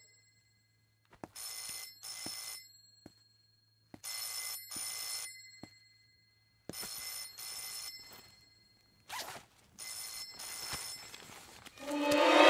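A telephone ringing in a repeated double ring, four rings about every three seconds, with background music swelling in near the end.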